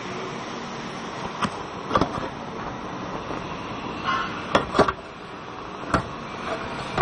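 Steady workshop noise with a faint low hum, broken by about six short, sharp knocks and clatters. The loudest knocks come a little past halfway and right at the end.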